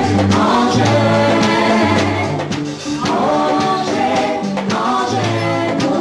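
A small group of singers, women and a man, singing together into microphones, with low bass notes held underneath that change about once a second.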